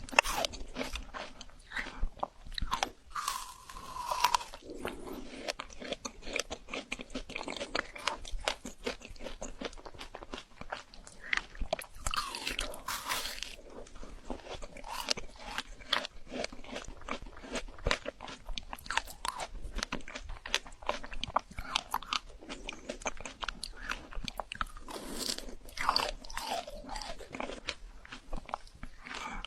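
Frozen fruit being bitten and chewed: a continuous run of crisp, crackly crunches, with a few louder stretches.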